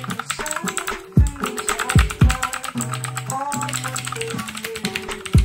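Fast typing on an Aukey mechanical keyboard with blue-type clicky switches: quick runs of key clicks. Background music with held bass notes and several deep bass hits plays over it.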